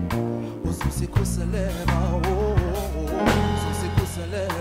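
A live band plays a passage without lyrics: drum kit hits, deep sustained electric bass notes and keys, with held harmony lines that waver in vibrato coming in about a third of the way through and again past the middle.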